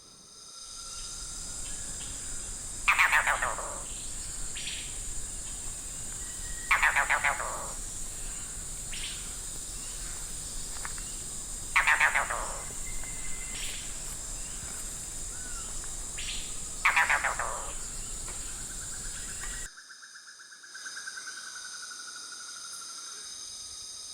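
Red-bearded bee-eater calling four times, a few seconds apart, each call a short pulsed croak that sounds like a cross between a frog and a duck. A steady high insect drone runs behind the calls and changes abruptly about 20 seconds in.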